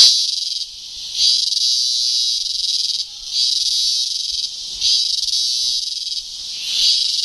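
Loud chorus of rainforest insects: a dense, high buzzing that swells and falls back in waves every second or two.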